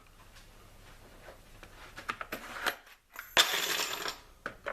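Loose metal drill bits clinking and clattering together, building up to a loud burst of clatter about three and a half seconds in, then a few single clinks.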